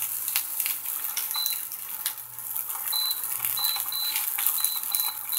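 Fried rice sizzling in a nonstick frying pan while a silicone spatula stirs and scrapes it, making a steady hiss with many small clicks. A faint high-pitched tone pulses on and off in the second half.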